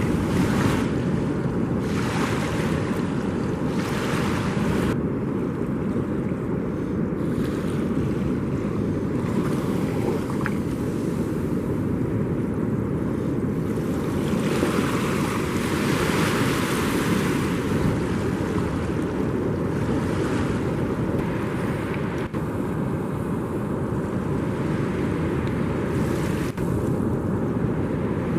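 Ocean surf washing on a beach, with waves swelling up now and then, over a steady rumble of wind on the microphone.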